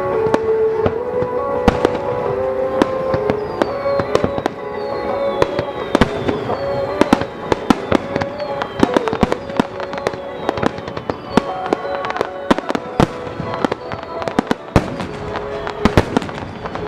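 Fireworks display: a rapid, irregular string of sharp bangs and cracks throughout, with several high whistles falling in pitch, over background music with long held notes.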